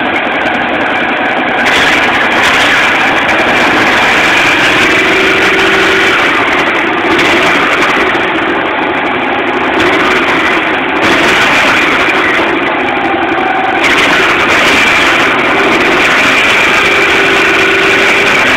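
360-cubic-inch V8 running steadily, loud and close up.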